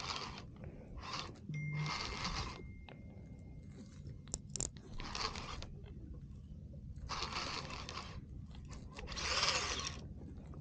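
Baitcasting reel whirring in about six short bursts, each under a second, while a hooked fish is being fought.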